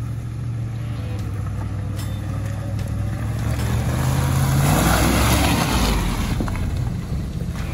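Off-road 4x4's engine running under load, its note rising about four seconds in, with a swell of rushing noise around the five-second mark.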